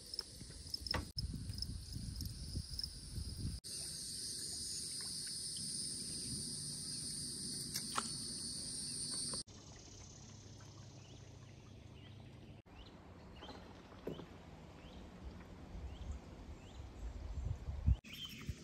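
Outdoor river-swamp ambience: insects drone steadily at a high pitch, with repeated ticking calls, over a low rumble of wind on the microphone. The background changes abruptly several times, and the insect drone is loudest in the middle stretch.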